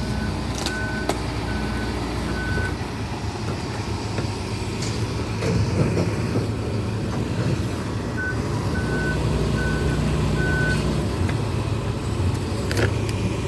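Heavy demolition machinery running steadily, with its reversing alarm beeping in two runs of about four beeps, near the start and again about eight seconds in. A few sharp knocks sound over the engine.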